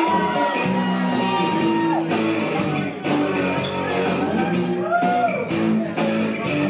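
Rock music with guitar over a steady beat of cymbal strokes. A long high note is held for about two seconds near the start and then drops, and another note bends up and back down around five seconds in.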